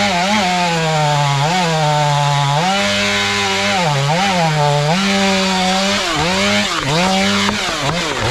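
Stihl MS 500i two-stroke chainsaw with a 32-inch bar cutting wood at full throttle. Its pitch sags again and again as the chain loads up in the cut, then climbs back. Near the end the engine speed drops.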